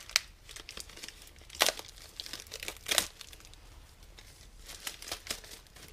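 Clear plastic wrapping crinkling as it is pulled open off new engine main bearing shells, in irregular crackles with two louder ones about one and a half and three seconds in.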